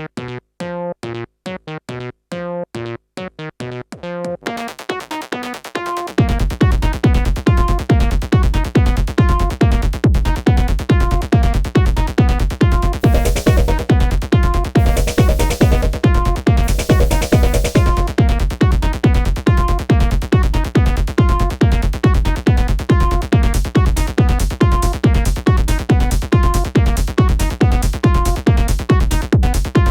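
Electronic dance music played live on hardware synthesizers and a drum machine. A sparse synth pattern opens, the track fills out about four seconds in, and a steady kick-drum beat enters about two seconds later. There are noisy swells around the middle.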